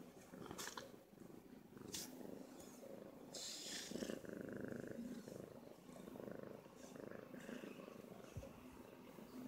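Grey cat purring softly, a low, steady rumble, while it is stroked.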